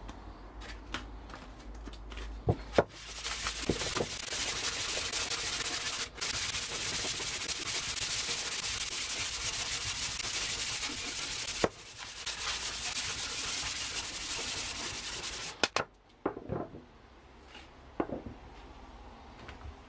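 Sandpaper rubbed by hand along a wooden tool handle: a steady, even scrubbing that lasts about twelve seconds, with two brief breaks. Two sharp knocks come just before it starts, and a few lighter knocks and clicks follow after it stops.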